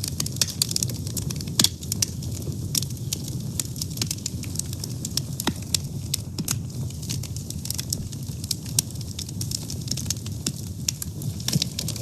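Wood fire burning: a steady low rumble of flames with frequent sharp crackles and pops.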